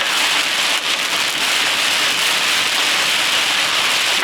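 Heavy rain beating on a vehicle, a steady, dense hiss.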